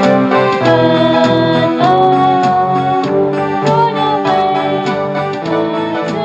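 Song music on an electronic keyboard with organ- or electric-piano-like tones over a steady percussive beat.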